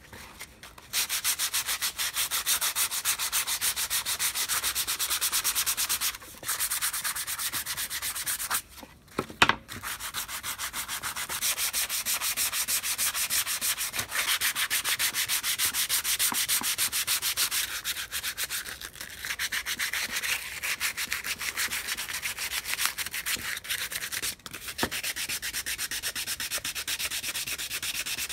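Sandpaper rubbed by hand over a weathered wooden saw handle in quick back-and-forth strokes, pausing briefly a few times. A sharp knock sounds about nine seconds in, during one of the pauses.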